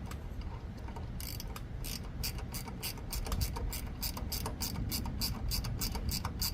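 Ratcheting 10 mm wrench clicking in a quick, even run, about four or five clicks a second, as bolts on the power rake's drive pulley are tightened down.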